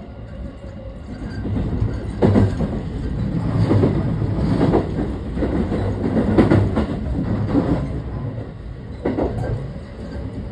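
Running sound inside an unpowered JR West 223 series 6000-subseries trailer car (SaHa 223-6199): a steady low rumble of wheels on rail, with irregular clacks as the wheels pass over the track. The loudest clacks come about two seconds in and again about six and a half seconds in.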